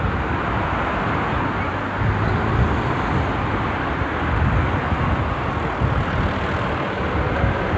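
Street traffic: cars driving past close by, a steady road noise with a low rumble.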